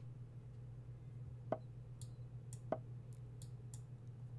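Two soft clicks about a second apart, the online chess board's move sounds as one piece is played and the reply comes back, with a few fainter mouse clicks between them over a steady low hum.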